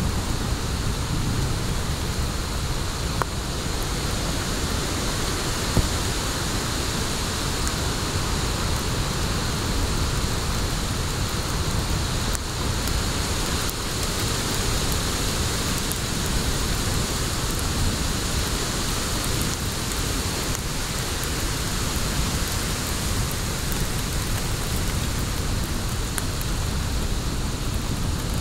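Wood fire in a fire pit burning with a steady hiss and a few faint pops, the sharpest about six seconds in, over a low rumble.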